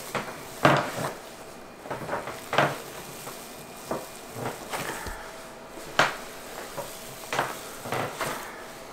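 Rubber-gloved hands kneading and squeezing ground venison sausage meat in a roasting pan, mixing in the seasoning: irregular squishes about once a second, some louder than others.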